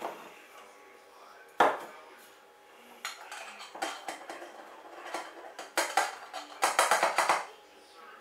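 Kitchen utensils and a jar knocking and clattering while ground acorn powder is moved into the jar. There is one sharp knock about a second and a half in, then scattered clicks, and a quick run of rattling taps near the end.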